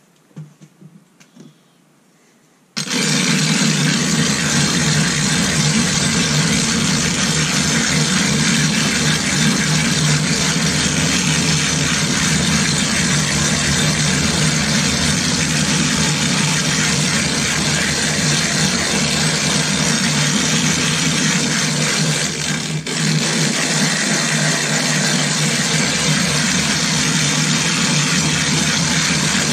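Silicon carbide sharpening stone being lapped on a glass plate with loose silicon carbide grit and water: a loud, steady gritty grinding that starts about three seconds in.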